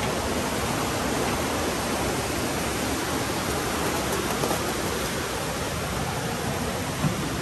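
Steady rushing of a river flowing close by, an even wash of water noise, with a brief knock near the end.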